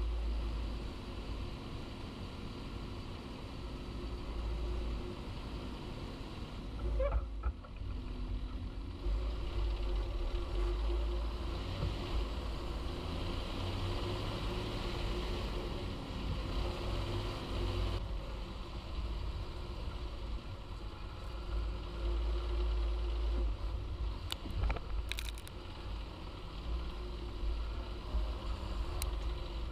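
John Deere 6930 tractor's six-cylinder diesel engine running steadily with a deep rumble, with a brief disturbance about seven seconds in and a few short clicks near the end.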